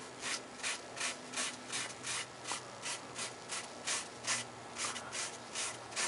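A cloth rubbing back and forth on a cello's varnished wooden top, wiping on wood stain in quick, even strokes, about three a second.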